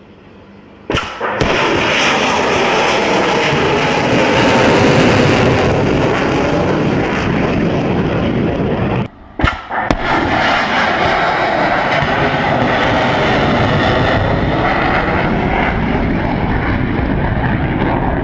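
Anti-ship cruise missile (P-800 Oniks / Yakhont) launched from a Bastion-P coastal battery: a sharp blast about a second in, then a loud, steady rocket roar. The roar cuts out briefly about nine seconds in, a second sharp crack follows, and the roar goes on as the missile climbs away.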